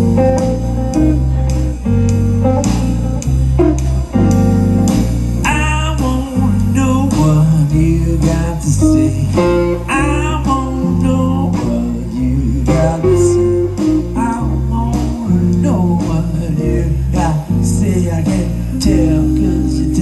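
Live blues-rock trio playing an instrumental passage: electric guitar lead with bent notes over a walking electric bass line and drums.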